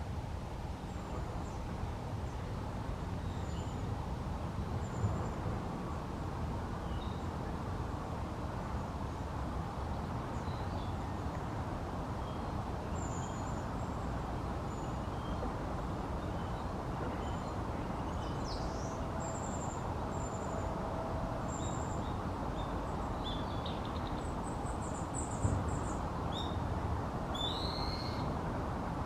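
Outdoor birdsong ambience: a steady low rushing background with scattered faint, high chirps and calls of small birds, and a short low hooting call twice a little past the middle.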